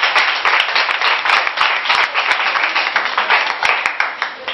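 A small audience applauding, with many hands clapping at once; the clapping dies away near the end.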